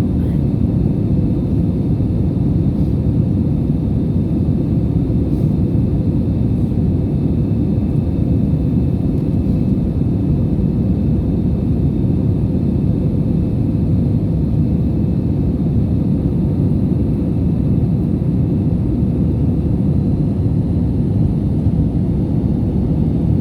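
Steady low rumble of an airliner's engines and airflow, heard inside the passenger cabin, with no rise or fall in level.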